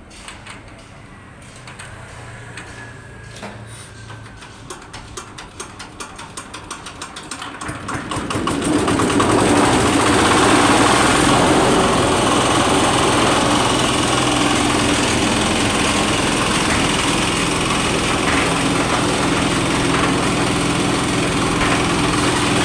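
Single-cylinder 8 HP diesel engine on a concrete mixer being hand-cranked: regular ticks that come faster and faster, then the engine fires about eight seconds in and keeps running steadily.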